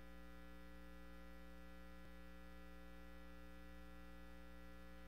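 Faint, steady electrical mains hum with its evenly spaced overtones, with one soft click about two seconds in.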